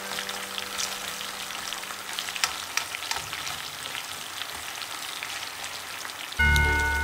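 Sweet potato fries frying in hot oil in a pan: a steady sizzle with many small crackles. Music comes in loudly near the end.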